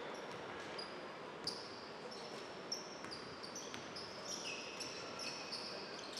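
Basketball shoes squeaking on the court in many short, high chirps as players cut and stop, with a few sharp knocks of the ball, over the steady background of a big hall.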